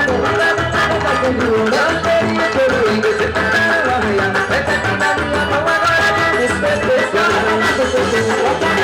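Loud festa junina quadrilha dance music, forró-style band music with a steady, dense percussion beat under a wavering melody.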